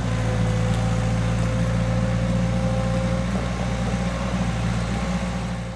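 Skid steer engine running steadily, with a faint steady whine above the low engine note.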